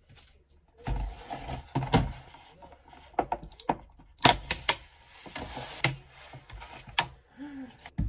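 Thin plastic clamshell strawberry containers being handled and pried open, crackling and clicking, with a sharp snap about four seconds in.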